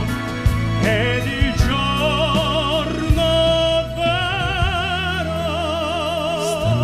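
Three men singing in operatic pop-opera style, in harmony, holding long notes with wide vibrato over instrumental accompaniment.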